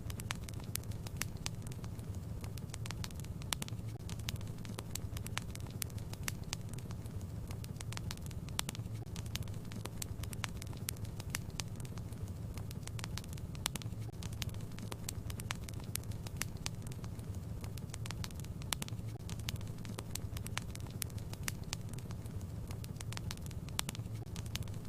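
Wood fire burning in a fireplace: a steady low rumble with frequent, irregular crackles and pops from the burning logs.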